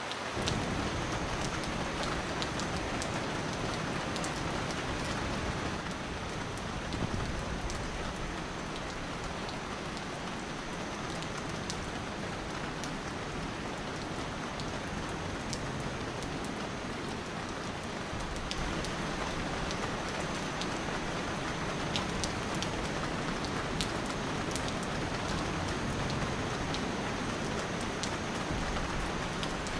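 Steady rain falling hard, an even hiss and patter with many sharp individual drop hits scattered through it.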